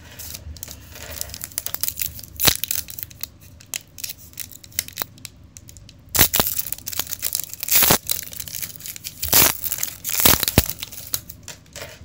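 Foil wrapper of a 2012-13 NBA Hoops basketball card pack crinkling and tearing as it is ripped open, in a run of sharp crackles that grow loudest in the second half.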